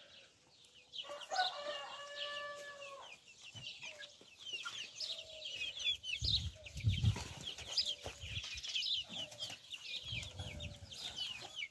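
Domestic chickens calling in their run. About a second in, one bird gives a drawn-out call lasting about two seconds, then short clucks follow. Quick high-pitched chirping runs throughout.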